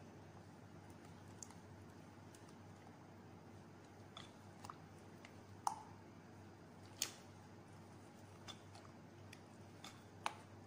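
Spatula stirring a thick, wet mixture of coconut and gelatin cubes in a glass bowl: faint squishing with scattered light clicks, about seven, as the spatula knocks the glass.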